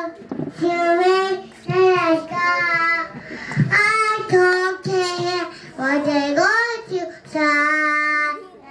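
A young girl singing solo, in short phrases of held notes with brief breaks between them.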